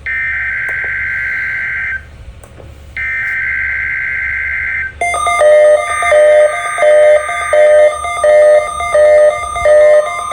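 NOAA Weather Radio SAME alert header: two bursts of warbling digital data tones, each about two seconds long and a second apart. From about five seconds in, a steady tone with a regular pulsing pattern of musical notes takes over.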